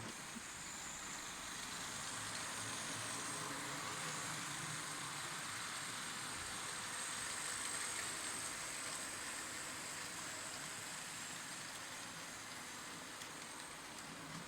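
H0 scale model train running along the track, its small electric motor giving a thin high whine over a steady rolling rush; it grows louder toward the middle, then eases off as it moves away.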